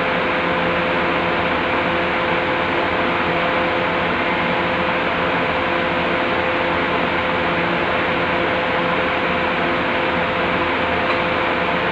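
Steady machine noise: an even hiss with a faint, constant hum in it, like a fan or motor running.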